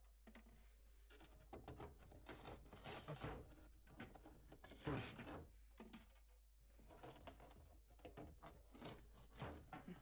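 Pliers breaking and tearing pieces out of the thin back panel of a kitchen sink cabinet: a string of irregular cracks, snaps and scrapes, loudest about three and five seconds in.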